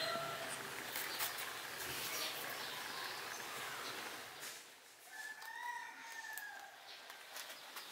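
A rabbit chewing cannabis stems, with many quick crunching clicks. About five seconds in comes a single drawn-out call whose pitch rises and then falls.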